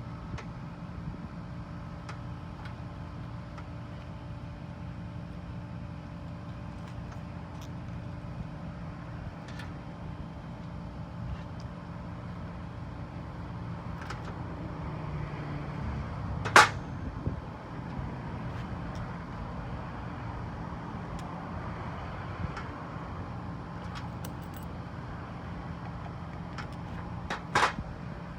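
Steady low background rumble with scattered light clicks of handling, and two sharp knocks, one about two-thirds of the way through and one near the end.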